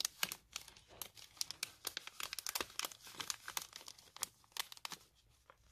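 Clear plastic sticker packet crinkling and rustling as fingers pick at it, in many short, irregular crackles with a brief pause near the end.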